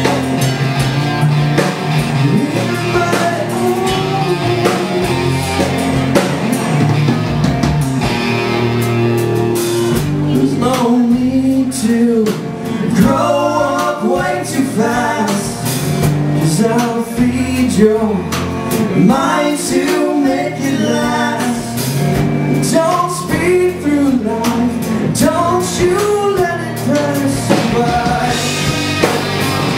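Live rock band playing electric guitars and drum kit, with a man singing lead vocals.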